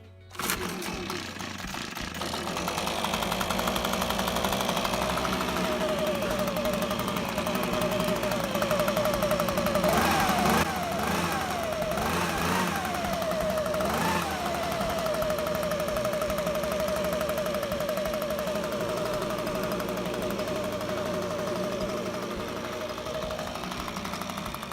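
Echo two-stroke backpack leaf blower engine starting about half a second in and running, with four quick revs of the throttle about ten seconds in before settling to a steady idle. The engine has just been treated with a carburetor-cleaning additive sprayed into the spark plug hole, which the owner says is cleaning out the carburetor as it runs.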